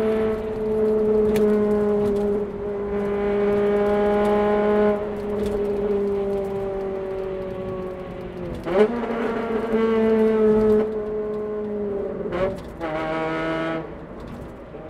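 Honda Civic Type R FD2's four-cylinder VTEC engine and exhaust, holding a steady high note whose pitch sags slowly. About nine seconds in the pitch dips sharply and jumps back up, and it shifts again about twelve and a half seconds in, as with gear changes.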